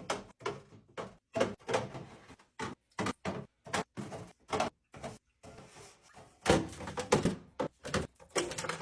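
Refrigerator shelves, drawers and plastic storage containers being handled: a quick series of short clunks, knocks and sliding sounds, chopped by abrupt silent gaps from jump cuts.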